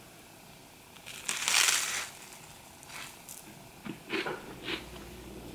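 A bite into crisp toast topped with corned beef hash: one loud crunch about a second in, lasting under a second, then several shorter, softer crunches of chewing.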